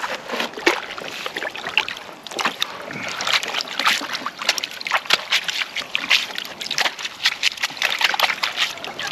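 Water sloshing and splashing as a sluice mat is scrubbed and rinsed out in a plastic gold pan held in a tub of muddy water: many short, irregular splashes, washing the caught concentrate into the pan.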